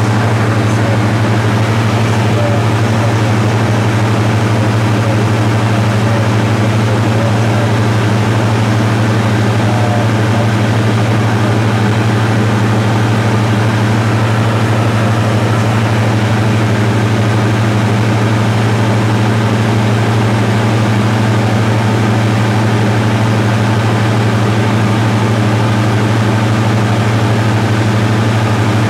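Cessna 172 diesel engine and propeller droning steadily at cruise power in flight, a constant low hum with no change in pitch.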